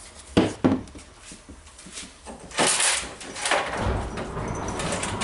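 Drill parts being handled on the bench: two sharp knocks under a second in, then scraping and rubbing as parts are shifted around.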